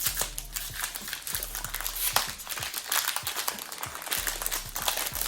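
Plastic packaging crinkling and rustling in the hands, with many small sharp crackles and clicks.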